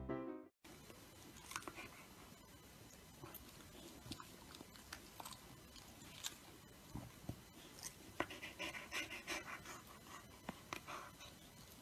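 Piano music stops about half a second in. After that, faint room sound with scattered small clicks and soft rustles comes from a fluffy dog having its head stroked, with a few slightly louder rustles near the end as it yawns.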